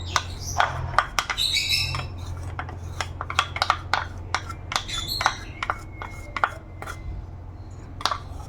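Birds chirping and squawking in the background, with repeated sharp clicks and taps of a utensil against a pan as ghee goes into it.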